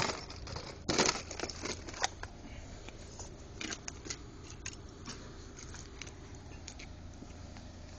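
Irregular clicks, knocks and short rustles of equipment being handled, busiest in the first two seconds, over a faint steady low hum.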